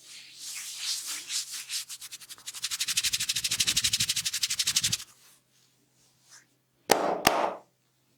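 Hands rubbing vigorously over hair and scalp in rapid strokes, speeding up to about ten a second and stopping abruptly. About two seconds later come two sharp cracks a fraction of a second apart.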